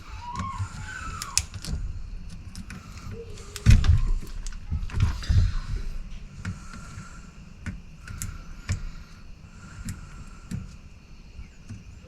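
Metal clicks and knocks of tools and valve parts being handled while the control levers are taken off a tractor hydraulic valve, with a heavy thump about four seconds in.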